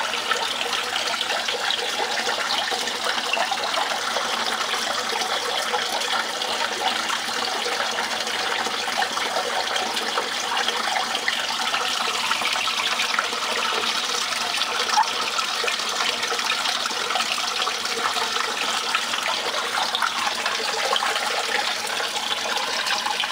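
Water running steadily over a DIY miller table, a continuous trickling wash as it carries black sand concentrate down the tray to separate out small pieces of gold.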